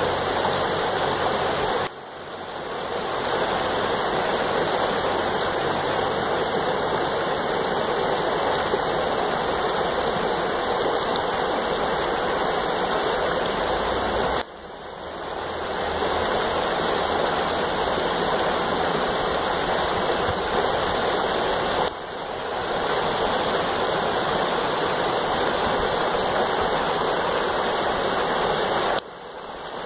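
Shallow creek rushing steadily over and between boulders in a riffle. Its level drops suddenly and swells back up four times.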